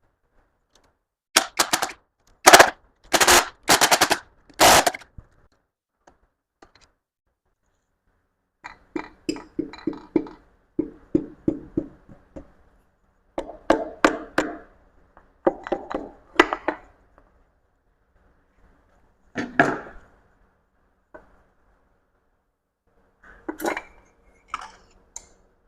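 Impact wrench hammering in several short, loud bursts, loosening the connecting rod cap nuts, followed by quieter spells of rapid rattling and a few metal clinks and knocks near the end.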